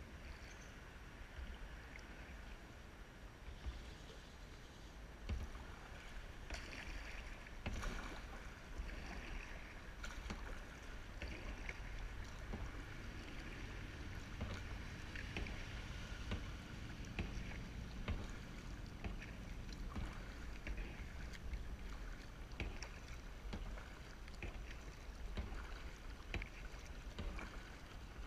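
Kayak paddle strokes dipping and splashing in calm river water, with small irregular splashes and clicks throughout over a steady low rumble.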